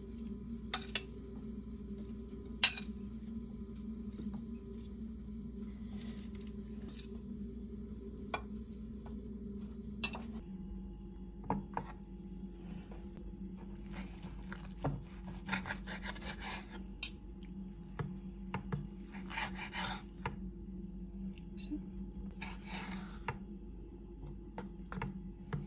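Dishes and cutlery clinking and knocking now and then, with the sharpest knock about three seconds in, over a steady low hum.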